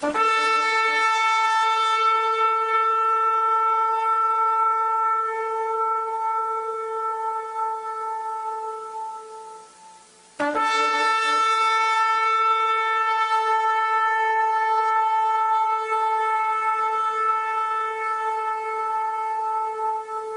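Shofar (ram's horn) sounded in two long, steady blasts of about ten seconds each, the second starting about halfway through and wavering a little toward its end.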